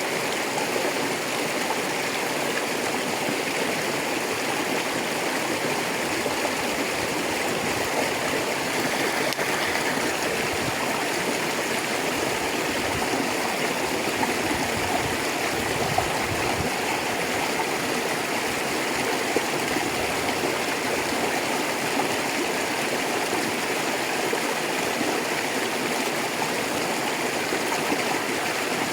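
A rocky river flowing: steady rushing and babbling of water over stones.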